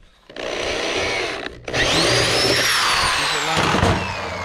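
Power drill boring through the thick plastic wall of a cooler, running in two bursts with the second louder, then its motor whine falling away as it spins down near the end.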